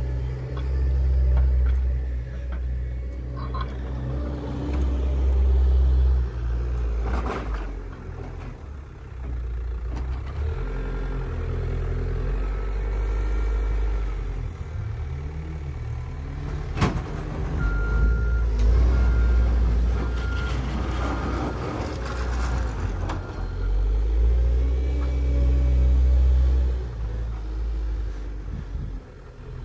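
Caterpillar 906 compact wheel loader's diesel engine working as it pushes snow, its rumble rising and falling with the throttle. Past the middle its reversing alarm beeps in short pulses for a few seconds, and there are a couple of sharp knocks.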